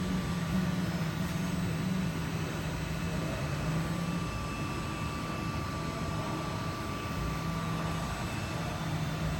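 CNC knife cutting machine running: a steady machine hum with a low motor tone that steps up and down in pitch as the cutting head moves.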